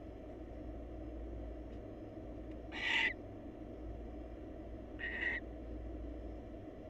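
Barn owl giving two short, harsh screeches, the first louder than the second, over a steady low hum.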